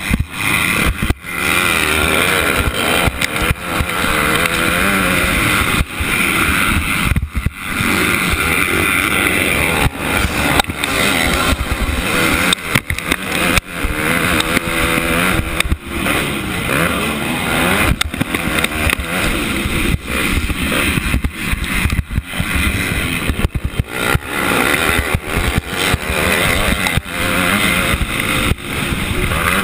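Motocross bike's engine racing under the rider, heard close up from the helmet: the pitch climbs and falls with the throttle, and the sound drops out briefly many times as the throttle is chopped.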